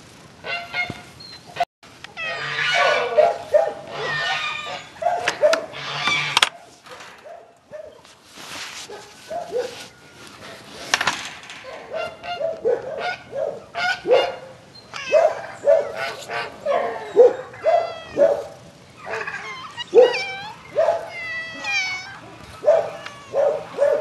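Several cats meowing, many short calls following one another and overlapping, with a few longer bending meows.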